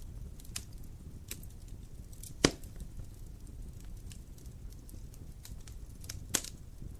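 Wood fire burning with a low steady rumble and scattered small crackles, and two loud sharp pops from the burning wood, about two and a half seconds in and again near the end.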